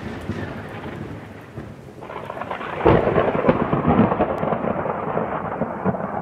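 Thunderstorm: steady rain with a sudden loud thunderclap about three seconds in that rumbles on.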